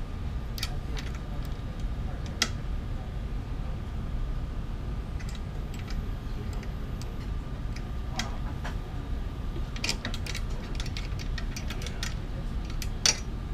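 Scattered light metal clicks and clinks of a wrench and hands on the eccentric wheel nuts of a 3D printer's aluminium bed frame, a dozen or so spread out, the sharpest near the end. A steady low hum runs beneath.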